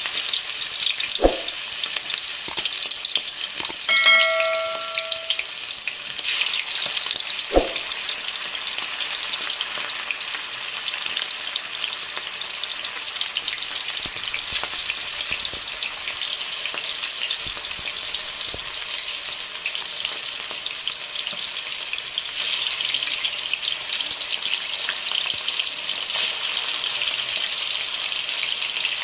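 Food frying in hot oil in a pan, sizzling steadily. There are a couple of sharp knocks, and a brief ringing clink about four seconds in.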